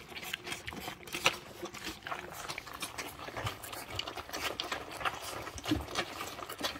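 Five-week-old American Molossus puppies eating mush together from a pan: a steady patter of many quick, irregular smacks and licks.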